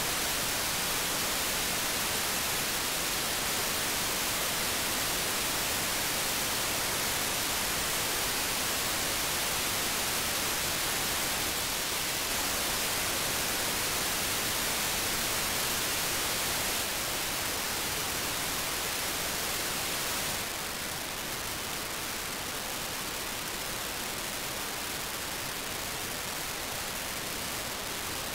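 Steady hiss of FM-demodulated radio noise from an RTL-SDR receiver tuned to 437.5 MHz. It drops a little in level about two-thirds of the way through.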